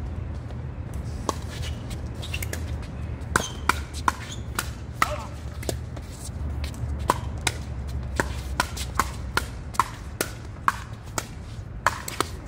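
Pickleball paddles hitting the hollow plastic ball in a fast doubles rally: about twenty sharp pops, at times several a second in quick volleys at the net, over a steady low rumble.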